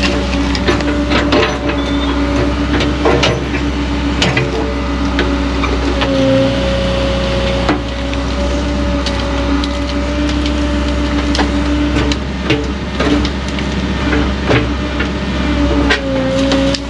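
Excavator engine running under load with a steady hydraulic whine that dips briefly about six seconds in and again near the end, while the bucket scrapes and knocks against rock and an old galvanized culvert pipe being pulled out, giving many short clicks and clunks.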